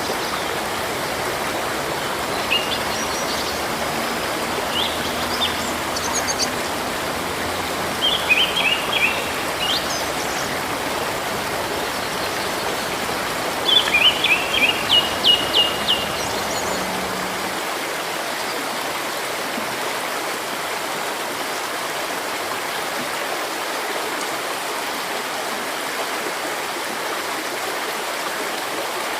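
Steady rushing of a river or stream, with a small bird calling over it in short runs of quick high chirps a few times, the longest about halfway through.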